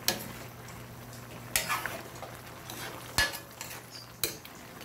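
Spatula stirring a boiling stew of duck, potatoes and carrots in an aluminium wok: four sharp clanks of the spatula against the pan over a steady bubbling hiss.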